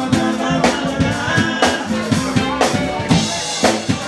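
Soul band playing: drum kit with a strong beat about once a second, under guitar, bass and a singing voice.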